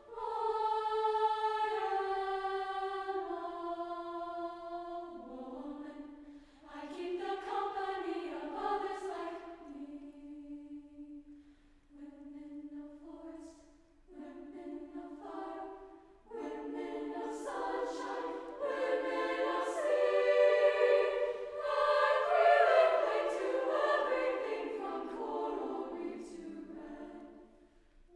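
High school choir singing sustained chords in phrases separated by short breaths, swelling to its loudest late on and then fading away near the end.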